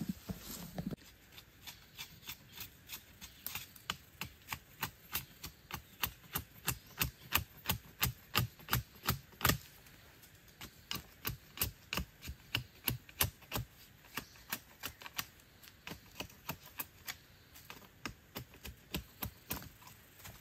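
Machete blade striking a thin wooden stick in quick light chops, about two to three a second, with a short break about halfway through.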